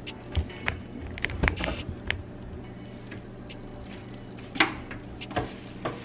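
Scattered taps, knocks and short scrapes of hands handling things on the floor of a wooden under-sink cabinet, with the loudest scrape just past four and a half seconds in.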